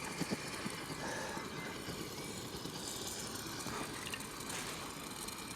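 A new camping stove burning steadily with a continuous rushing hiss of flame, which the owner thinks is still burning in after flaring up.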